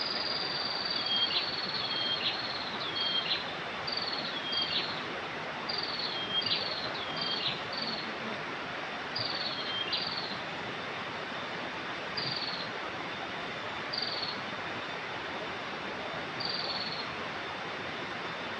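A bird calling over and over in short, high, hooked whistles, many in quick succession at first and then every couple of seconds, over the steady rush of flowing river water.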